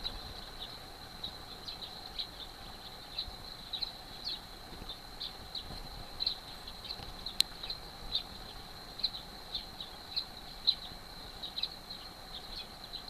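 Outdoor chorus of short, high chirps, about once or twice a second at uneven spacing, over a steady high-pitched drone, with one sharp click about seven seconds in.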